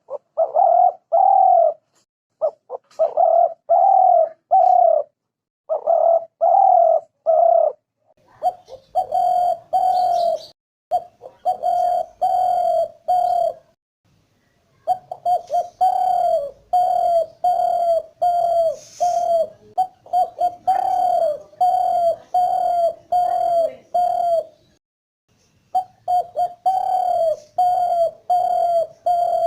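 Spotted dove cooing: short coo notes repeated about twice a second in runs of several, with brief pauses between the runs.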